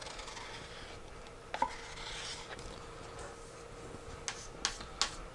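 Wooden stir stick scraping the last of the epoxy resin out of a plastic mixing cup, with a few sharp taps of the stick against the cup, most of them in the last second and a half.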